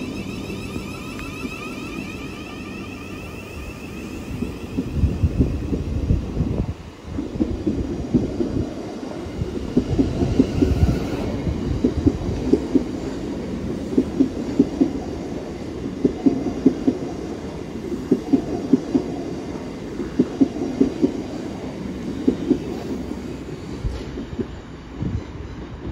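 Class 707 (Siemens Desiro City) electric multiple unit pulling out of a station. In the first few seconds there is an electric whine from its traction equipment that changes pitch as it gathers speed, then the rhythmic clatter of its wheels over rail joints, a thud every second or two as the carriages roll past.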